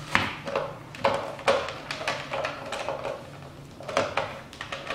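Plastic casing and power cord of a portable 12-volt air compressor being handled: a few sharp clicks and knocks with some rustling, the compressor not running.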